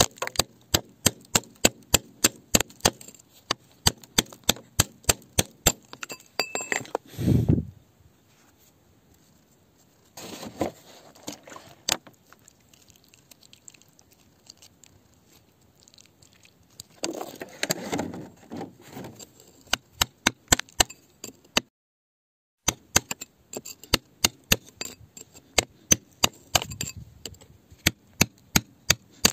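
Iron digging bar striking rock, sharp clinking blows at about two to three a second, chipping out a hole. The blows stop for most of the middle of the stretch, with a couple of brief rougher scraping noises, then resume.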